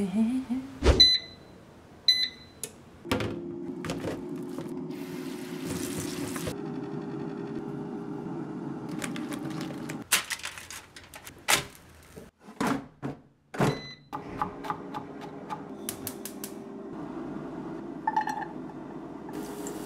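Kitchen appliance sounds: two short electronic beeps, about a second and two seconds in, then the steady hum of an appliance running. Near the middle the hum breaks off for a series of clatters and knocks as food and utensils are handled, and it comes back afterwards.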